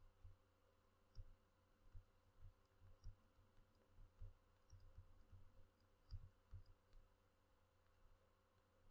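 Near silence with faint, scattered light taps and clicks of a stylus writing on a tablet.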